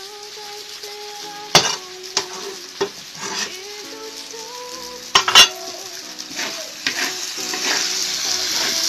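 Garlic chives and sliced glutinous rice cakes sizzling in hot oil in a large wok while a metal spatula stirs them, scraping and knocking against the wok a few times. The sizzle grows louder near the end.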